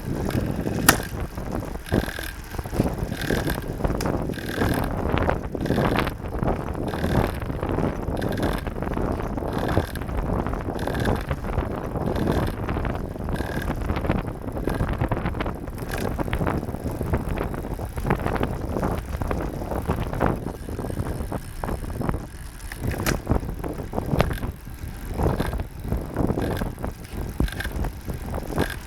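Giant SCR 2 road bike drivetrain running in a harder gear, with clicks and a short high chirp that repeats about once a second through the first half. This is the abnormal noise that appears after shifting into a harder gear.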